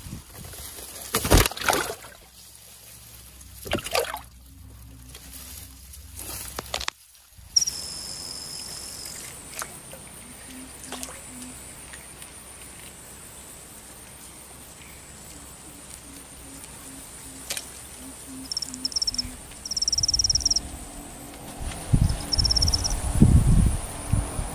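Water splashing and trickling in short bursts as a freshly caught fish is handled over a bucket of water. About seven seconds in, it gives way to a quieter steady outdoor background with faint high tones, and more splashing comes near the end.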